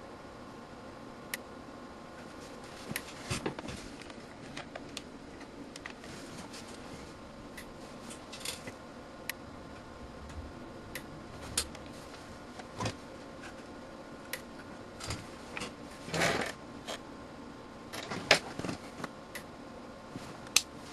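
Multimeter surge-test bench: a steady electrical hum broken by about a dozen sharp clicks and snaps at irregular intervals, the loudest a longer crackle about three-quarters of the way through, as 2 kV surges are put into the multimeter.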